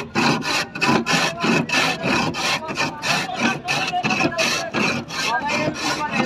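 A block of ice being shaved by hand on a slanted metal ice-shaving board with a blade: rhythmic scraping strokes, about three a second.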